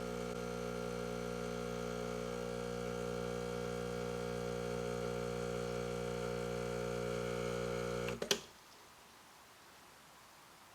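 Espresso machine's pump humming steadily while pulling a shot under good brewing pressure, then switched off about eight seconds in with a click as the shot ends.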